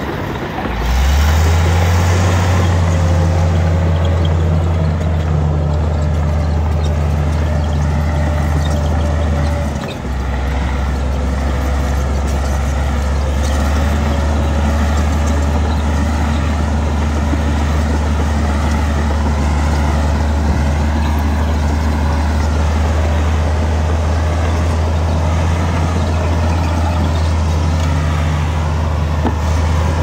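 Diesel engine of heavy earthmoving machinery running with a steady low drone, with a faint wavering whine above it. The drone dips briefly and picks up again about a second in, and again near the middle.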